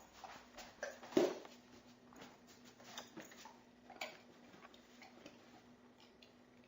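Scattered small clicks and knocks from a puppy getting at ice cubes, with a louder knock about a second in, over a faint steady hum.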